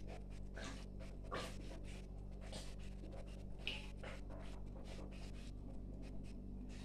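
Small plastic sachet crinkling and rustling in the hands as it is opened: a string of short scratchy clicks, a couple of them louder, over a steady low hum.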